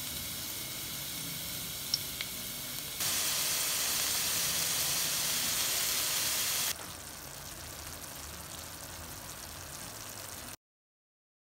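Food sizzling in a hot pan as a steady hiss, in three cut clips at different levels, loudest in the middle one. A couple of small clicks come about two seconds in, and the sound cuts off abruptly near the end.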